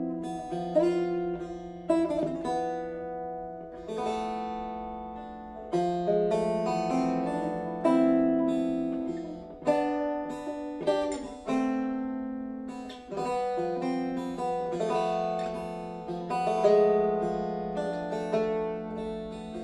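Solo fretted plucked string instrument with a small wooden body, played fingerstyle: picked chords and melody notes ring and fade in turn over a low note that sounds under most of the passage.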